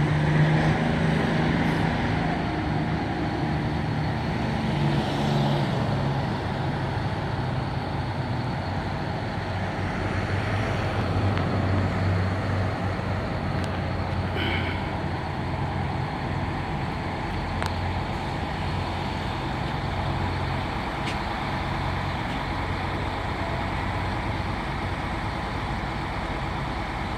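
Vintage buses' diesel engines running as a line of old buses moves along the street. The engine sound is loudest for the first few seconds, as a transit bus pulls past, then settles into a steady low drone. A brief hiss comes about halfway through.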